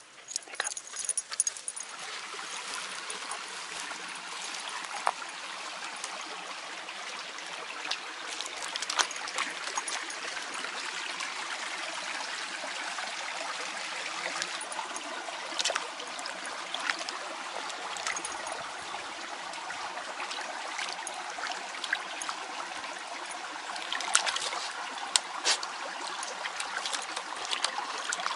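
Shallow, rocky woodland brook trickling steadily over stones, with scattered small splashes that come more often near the end as a dog wades through the water.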